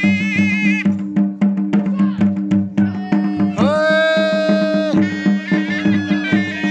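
Traditional Ladakhi folk music for dancing: an ornamented melody over a steady drumbeat, with one long held note about halfway through.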